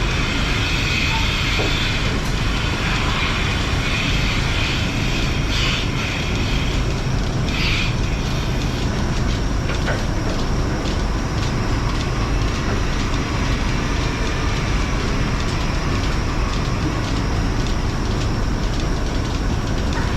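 Steady machinery noise of a dairy milking parlor: the vacuum system and milking units running, with a light rhythmic clicking. A few brief brighter hisses come about six and eight seconds in.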